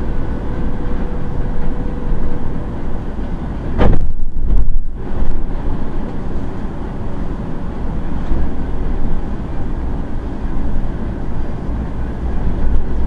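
City bus under way: steady engine and road rumble heard from the driver's seat. About four seconds in there is a sharp knock, followed by a second or so of heavy low rumble.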